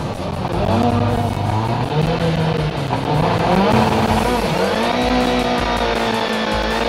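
Turbocharged Honda Civic Type R rallycross car's engine revving from inside the cockpit, its pitch climbing, dipping and rising again several times.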